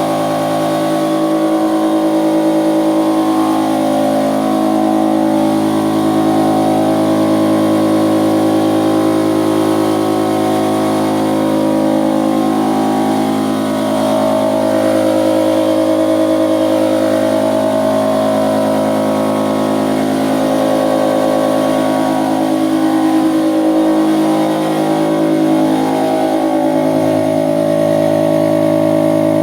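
Stermay outboard motor running steadily at a constant throttle, its engine note holding an even pitch with only slight wavering.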